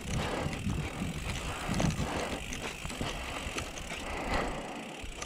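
Mountain bike rolling over a rough track, with tyre rumble and the bike rattling over bumps. The low rumble dies away near the end as the bike slows.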